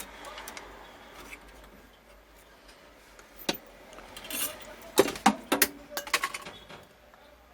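Sharp clicks and clinks of small metal tools and parts being handled on a workbench, a quick cluster of them in the second half.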